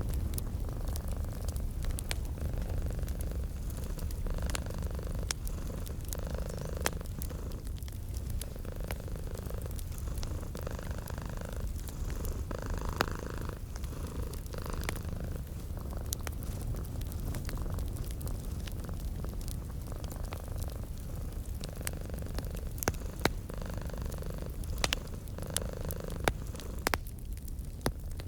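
A cat purring steadily, a continuous low rumble that swells and eases with each breath about once a second, mixed with the sharp scattered pops and crackles of a wood fire.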